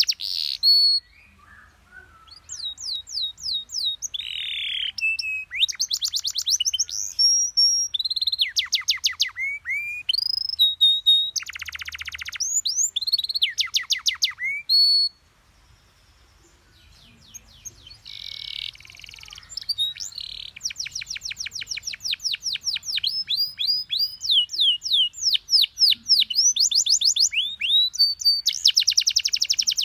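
Domestic canary singing: fast rolls of repeated falling notes, one phrase after another, with a short pause about halfway through.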